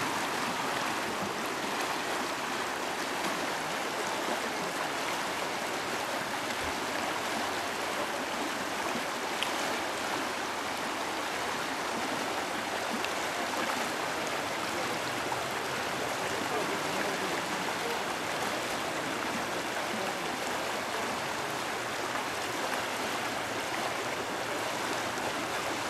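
Shallow river rushing over rocks in a riffle: a steady, even roar of running water.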